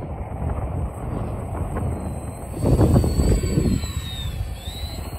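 Radio-controlled twin-engine model airplane passing low overhead, its motors and propellers giving a thin high whine that rises and then dips in pitch as it goes by. Wind rumbles on the microphone throughout, strongest near the middle.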